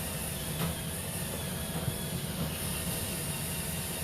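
Steady low mechanical hum with an even hiss, and a faint knock about half a second in.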